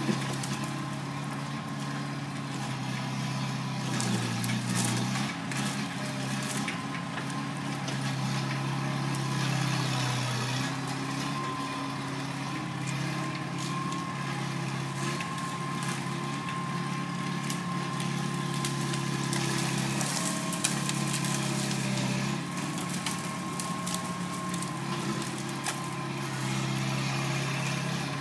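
Bobcat skid-steer loader engine running continuously while working, its pitch dipping and rising a few times as the load changes. A high, thin whine runs alongside it, with scattered faint clatter.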